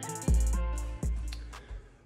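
Background music with a heavy bass and drum hits, dying away near the end.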